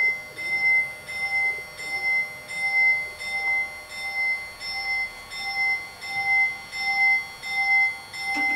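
Level-crossing warning bells ringing, a steady repeated ding a little under twice a second, while the barriers come down; a short knock near the end.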